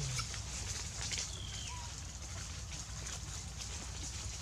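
Forest ambience: a steady high-pitched hiss or buzz with low rumble beneath, and a couple of faint short chirping calls a little over a second in.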